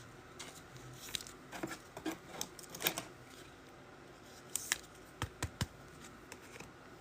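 Faint scattered clicks, taps and rustles of trading cards and card packaging being handled, with a cluster of sharper taps about two-thirds of the way in.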